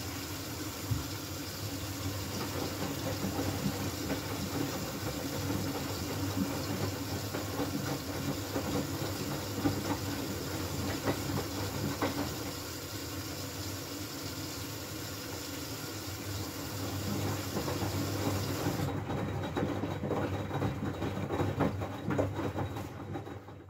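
Miele W433S washing machine in its last rinse with a high water level: the drum turns with water sloshing and small knocks over the motor's steady running. A steady hiss stops about three-quarters of the way through, and the drum stops just before the end.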